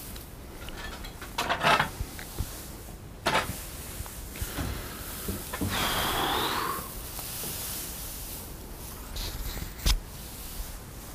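A few sharp knocks and bangs, the loudest about one and a half seconds in, and a scraping creak lasting about a second near the middle.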